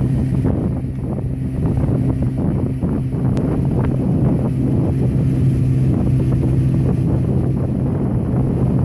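Boat motor running at a steady low hum, with wind buffeting the microphone.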